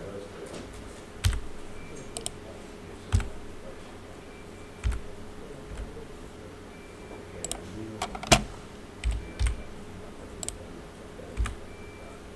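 Computer keyboard keys and mouse buttons clicked in sparse, irregular presses, about a dozen in all, the loudest a little past the middle, as 3D-software shortcuts for extruding, scaling and moving are entered. A faint steady hum runs underneath.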